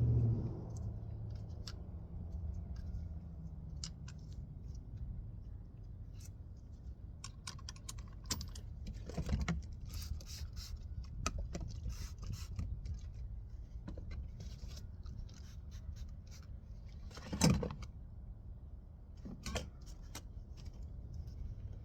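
Hand tools clinking, clicking and scraping against metal while an EJ25 water pump is being fitted, in irregular bursts with a couple of louder knocks near the end, over a low steady hum.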